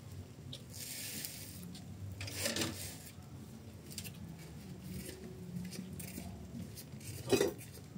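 Faint kitchen handling noises from a cook moving about: soft rubs and clicks over a low rumble, with a short hiss about a second in and a sharper knock near the end.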